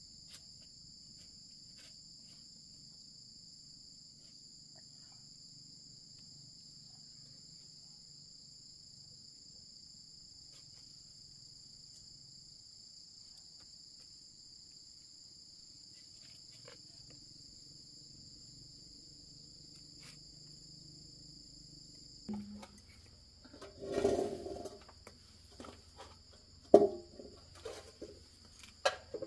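Steady high-pitched insect drone in a few even tones, with a low hum under it. From about three quarters of the way in, several sudden, louder short sounds break in, the loudest a sharp one near the end.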